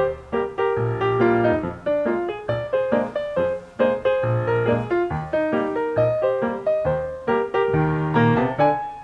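Background piano music, a run of struck notes over repeating low chords.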